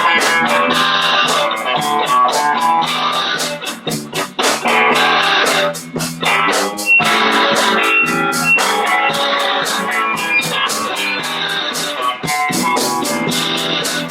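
Live band playing a song, electric guitar to the fore over drums keeping a steady beat, with short breaks about 4 and 6 seconds in.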